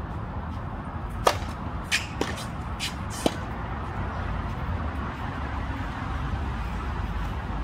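Tennis racket striking the ball on a serve about a second in, a single sharp pop, followed by several fainter sharp knocks over the next two seconds, over a steady low background rumble.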